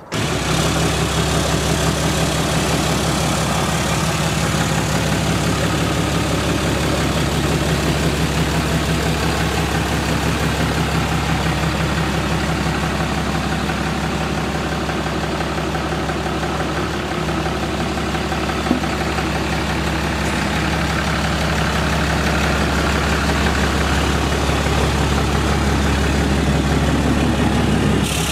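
Cummins inline-six turbo-diesel engine of a Dodge Ram pickup running at a steady speed, an even low drone that swells slightly near the end, with a single sharp click about 19 seconds in.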